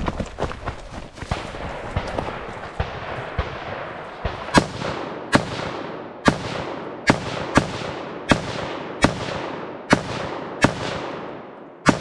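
Semi-automatic AR-pattern rifle firing aimed shots, about ten sharp reports at a steady pace of roughly one every three-quarters of a second, starting about four seconds in. Each shot trails off in a short echo. Before them come fainter, quicker cracks and knocks.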